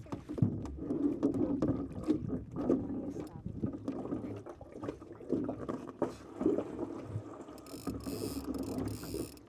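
Water slapping against the hull of a small plywood Oz Goose sailing skiff under way, with irregular knocks throughout and a short hiss near the end.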